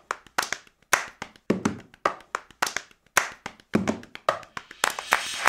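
A steady rhythm of sharp, clap-like percussion hits, about two a second with lighter ticks between them. A hissing wash comes in near the end.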